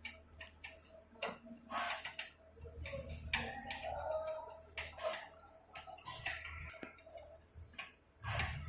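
A series of light clicks and taps at irregular intervals, a dozen or more over several seconds.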